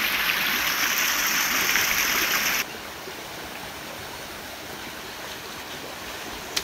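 Water of a small rocky forest stream cascading over boulders: a loud, close rush that cuts off suddenly about two and a half seconds in to a quieter, steady flow. A single sharp knock near the end.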